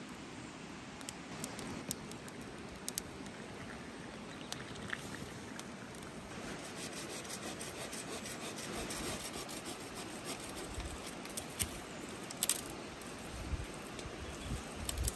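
Dry branches and twigs being handled and trimmed: scattered snaps and clicks over a steady outdoor hiss, with a few heavier knocks in the second half.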